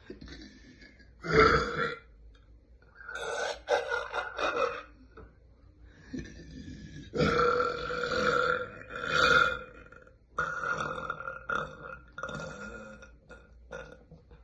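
A person releasing a series of deep burps. There is a short loud one about a second in, a second one about three seconds in, then a long drawn-out burp of roughly three seconds in the middle, followed by softer, broken-up burps near the end.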